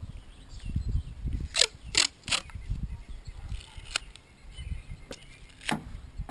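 Tape being pulled off a roll in short rips to hold a motorcycle tank pad in place: three quick rips close together, a click, then one more rip, over soft handling noise.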